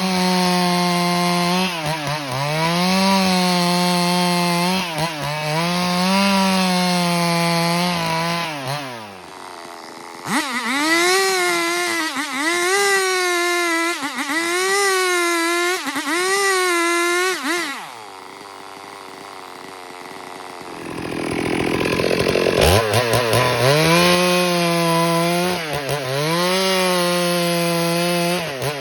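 Stihl MS382 two-stroke chainsaw ripping timber lengthwise at full throttle, the engine pitch repeatedly sagging and recovering as the chain bites into the wood. About 18 seconds in it drops to a quieter, lower running for a few seconds, then revs up again and goes back into the cut.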